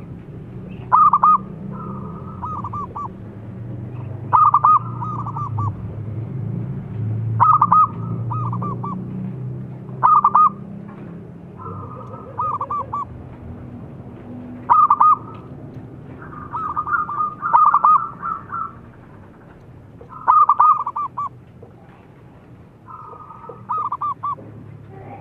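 Zebra dove (perkutut) singing its cooing song: a quick phrase of a few sharp notes followed by a softer trailing run, repeated about eight times, every two to four seconds. A low rumble sits under the first half.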